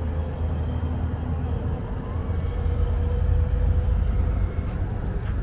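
Steady low rumble of outdoor city background noise with a faint steady hum over it.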